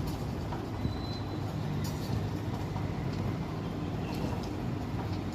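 Steady low rumble, like a vehicle engine running, with a few faint clicks over it.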